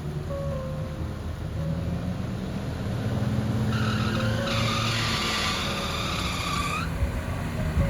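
A vehicle running low and steady, with a loud high squeal for about three seconds in the middle that bends upward as it cuts off.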